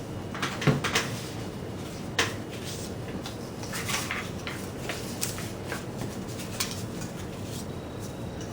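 Irregular light clicks and knocks of paper craft materials and a glue bottle being handled on a tabletop while hands and feet are glued onto a paper puppet, the sharpest knock coming about two-thirds of a second in, over a steady background hiss.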